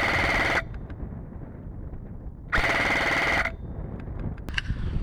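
An airsoft electric rifle (AEG) firing on full auto: a fast rattling burst that stops about half a second in, then a second burst of about a second near the middle.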